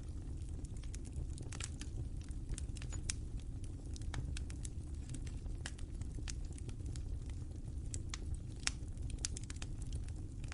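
Wood fire crackling: irregular sharp pops and snaps over a steady low rumble of flames.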